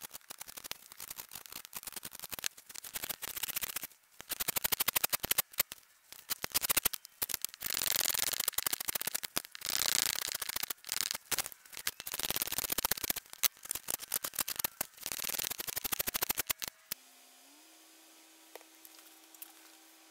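Small hand plane shaving a red cedar board, stroke after stroke, each pass a hiss of steel cutting wood with short pauses between. About 17 seconds in the planing stops abruptly, leaving quiet room tone with a faint steady hum.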